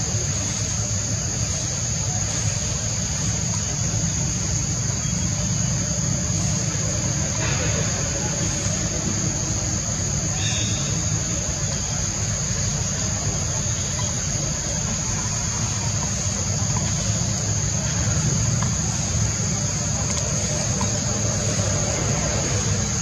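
A steady high-pitched drone of insects, such as cicadas or crickets, over a constant low rumble.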